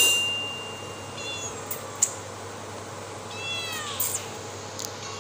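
Tabby cat meowing: a short meow about a second in, then a longer meow around three and a half seconds in that rises and falls in pitch. A high steady tone fades out over the first second, and there is a sharp click about two seconds in.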